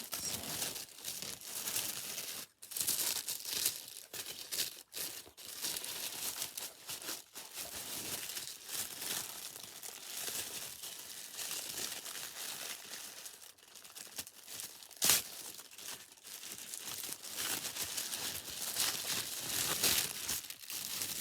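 Packaging crinkling and rustling as a new handbag is unwrapped and pulled out of its wrapping, with one sharper, louder crackle about two-thirds of the way through.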